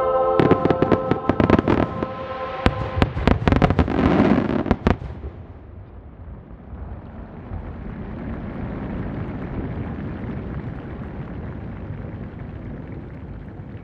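Aerial fireworks finale: a rapid string of loud shell bursts for about five seconds, then a steady hiss that slowly fades as the display dies away.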